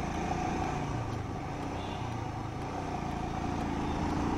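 Motorcycle engine running at low speed in city traffic, heard from the rider's seat, with the revs and loudness rising slightly near the end as the bike picks up speed.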